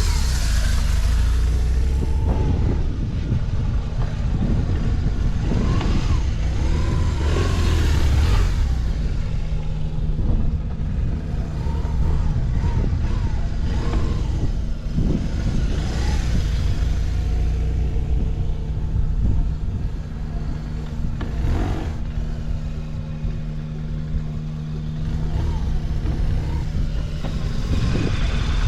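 BMW R1200R boxer-twin engine idling steadily, with the throttle blipped a few times so the revs rise and fall back. It runs with no abnormal noise and picks up revs well.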